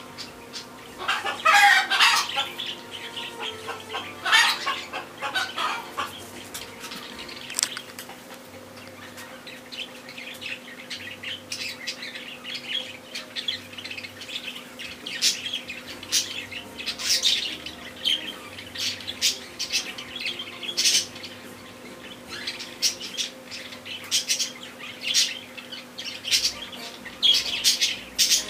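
Small birds chirping in short, high calls, scattered all through, with a few louder bursts of calls in the first six seconds, over a faint steady low hum.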